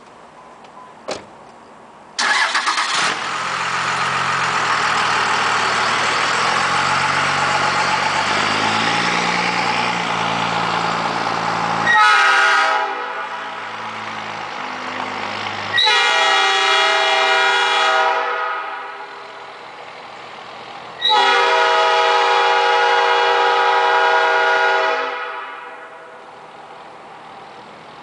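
Nathan Airchime P5 five-chime train horn, running on compressed air, blown in a series of blasts: a long one of about ten seconds starting about two seconds in, then further chord blasts about twelve, sixteen and twenty-one seconds in, each fading as it stops. The chord is way out of tune.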